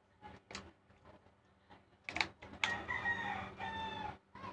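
A rooster crowing once, starting about two and a half seconds in: one call of about a second and a half, with a short break near its end. Before it, a few light clicks from a small plastic bottle cap being worked open.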